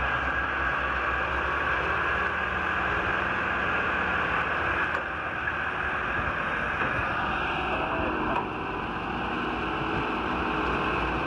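A vehicle running steadily, with continuous engine and motion noise.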